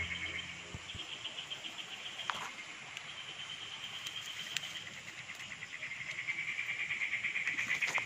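Insects trilling in a rapid, even pulse that swells louder near the end.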